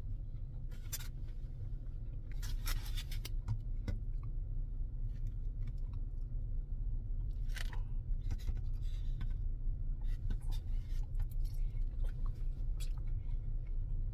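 Close-up eating sounds: chewing, with a plastic fork scraping and clicking against a styrofoam takeout container in scattered strokes, over a steady low hum.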